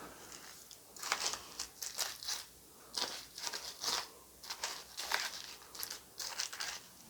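Plastic packaging crinkling and rustling in a series of short, irregular bursts.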